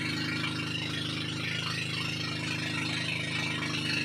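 Bangka's motor running steadily as the boat cruises, with a steady hiss above it.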